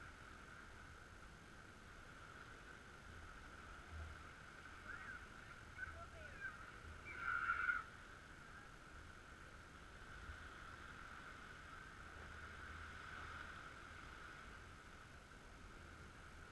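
Faint bird calls, a few short ones with the loudest about seven and a half seconds in, over a steady high-pitched drone.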